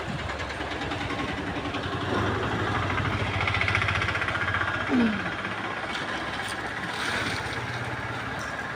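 An engine running steadily, with a short falling shout about five seconds in.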